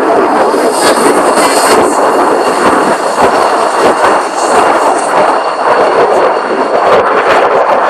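MiG-35 fighter jet flying past, its twin turbofan engines making a loud, steady jet noise with thin high whining tones over it.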